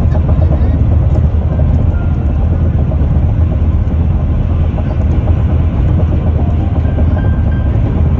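Steady low rumble of tyre and engine noise heard inside a car cruising at highway speed.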